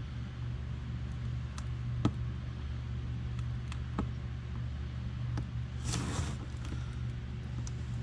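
Protective backing being peeled off adhesive-backed Velcro strips by hand: scattered light clicks of handling and a short tearing rustle about six seconds in.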